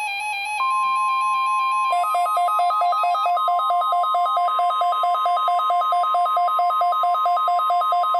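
Weather-radio alert tones: a steady, loud single tone of about 1 kHz, the NOAA Weather Radio warning alarm tone, starts about half a second in. About two seconds in it is joined by a fast electronic warble that pulses between a low and a high note about five times a second, over faint synth music.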